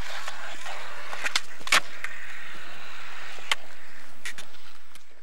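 Skateboard wheels rolling steadily on a concrete bowl, with several sharp clacks from the board; the loudest comes a little under two seconds in. The sound fades out near the end.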